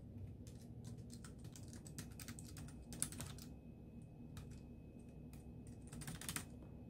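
Typing on a slim wireless tablet keyboard: quick runs of light key clicks. The runs are busiest about two to three seconds in and again near the end, with one sharper keystroke about three seconds in.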